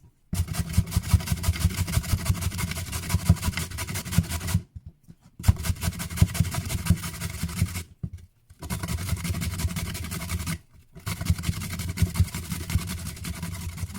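A sweet potato grated on the coarse holes of a grater: four long bouts of fast, even scraping strokes with short pauses between them.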